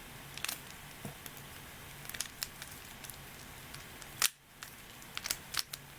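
Mirror cube being turned by hand: irregular plastic clicks as its layers are rotated, with one sharper click about four seconds in.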